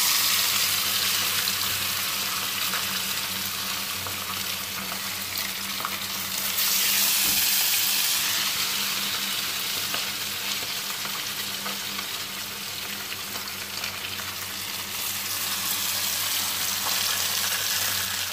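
Black fish frying in hot oil, a loud steady sizzle that surges sharply at the start and again about six and a half seconds in.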